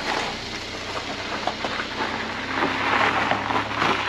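A Mercedes-Benz car's cold engine running as the car rolls past and pulls away over an icy driveway, with small crackles from the tyres. The sound grows louder toward the end.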